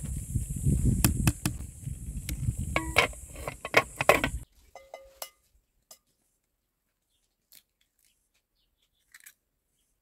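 Metal ladle stirring thick apricot purée in an aluminium pot, scraping and clinking against the sides with one short ringing clank, over a low rumble and a steady high hiss. About four and a half seconds in this cuts off to near silence with a few faint taps.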